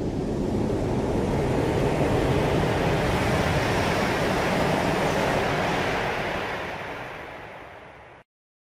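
A long whooshing swell of rushing noise, a magic-style sound effect. It slowly grows louder, holds, then fades away over about eight seconds.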